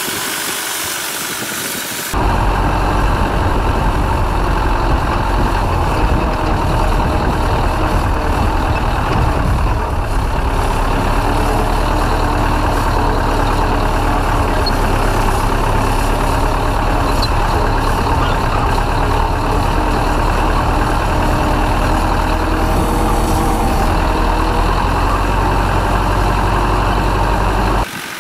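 Ursus C-4011 tractor's four-cylinder diesel engine running steadily under load, heard loud and close. It cuts in abruptly about two seconds in and cuts off just before the end.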